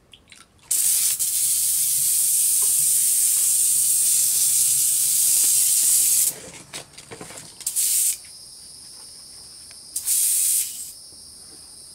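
Airbrush spraying clear cleaning fluid out into a trash bag to flush the old paint before a colour change. It gives a steady hiss of air and spray for about five seconds, then two short bursts.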